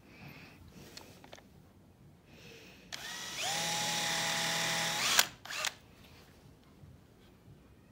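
Cordless drill boring a hole in wood. The motor spins up with a rising whine about three seconds in, runs steady for about two seconds, then stops, followed by a brief second burst.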